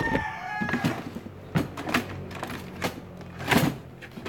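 A rooster's crow trailing off in the first second, then scattered sharp knocks and handling clatter over a steady low hum, the loudest knock about three and a half seconds in.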